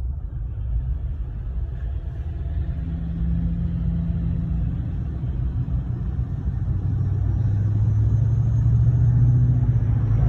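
LML Duramax 6.6 L V8 turbo-diesel through a 5-inch exhaust, running with a very low drone. The drone grows louder over the second half, settling into a steady deep hum.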